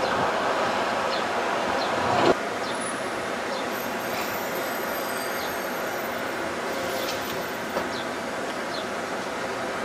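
Steady mechanical rumble with a few faint, brief high metallic squeaks; the level drops a little and evens out about two seconds in.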